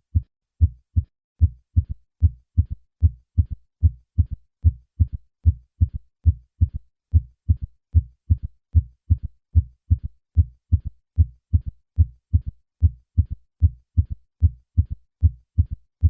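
Heart sounds with a third heart sound: short, low thuds repeating in a steady galloping rhythm, the first and second heart sounds each followed shortly by an extra early-diastolic S3, the 'Ken-TUCK-y' cadence. In adults over 40 an S3 gallop is a sign of left ventricular failure; in children and young adults it can be normal.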